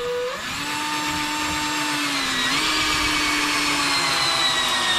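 Cordless drill running continuously with its bit in wood, a steady motor whine that dips slightly in pitch about halfway through as it takes more load.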